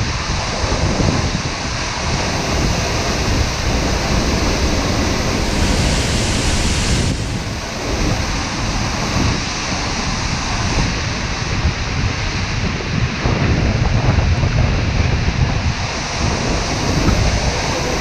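Seljalandsfoss waterfall crashing into its plunge pool, a steady, dense rush of water heard from close behind the falls, with wind buffeting the microphone underneath.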